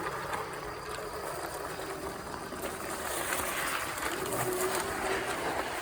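Steady rolling noise of an e-bike ride: tyres on the road and wind on the microphone, a little louder in the second half.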